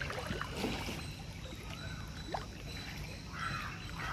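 A crow cawing once near the end over a low, steady outdoor rumble.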